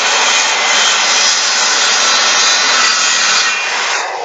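Handheld corded circular saw running and cutting through a small piece of wood. Near the end the cut finishes and the saw starts to wind down.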